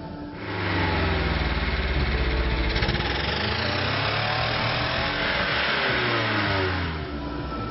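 BMW saloon's engine comes up to a loud run about half a second in, then is revved up and down several times, its pitch rising and falling.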